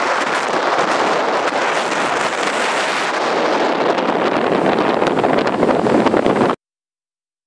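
Strong wind buffeting the microphone beside a choppy, whitecapped lake: a steady, rough rush that cuts off suddenly about six and a half seconds in.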